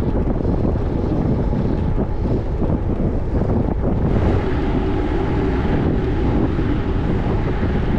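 Wind buffeting the microphone: a loud, steady low rumble with a rushing hiss above it.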